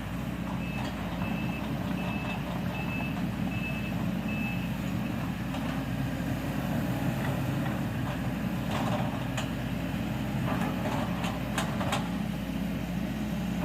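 Excavator's diesel engine running steadily, its travel alarm giving about six short, even beeps in the first few seconds. Several sharp metallic clanks follow later.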